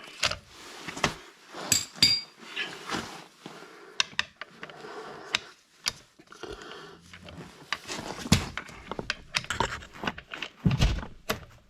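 Scattered metal clinks and knocks of a hand wrench, digital torque adapter and socket working on a car wheel's lug nut.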